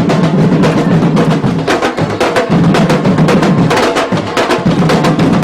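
Afro-Brazilian percussion ensemble playing drums in a dense, driving rhythm, with many quick strokes over a deep drum tone that drops out briefly now and then.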